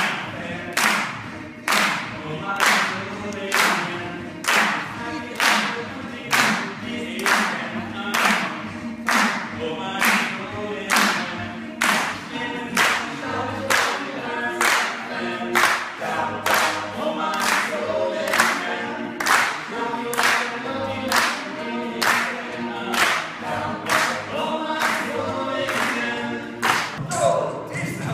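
Male a cappella group singing live in close harmony, with the audience clapping along on the beat, about one clap a second.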